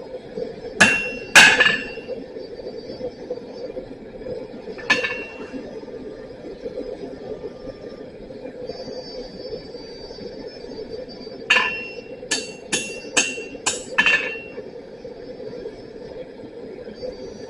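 Hammer blows on hot steel over an anvil, each ringing briefly: two about a second in, one near five seconds, then a quick run of six blows a little before the end, over a steady hum.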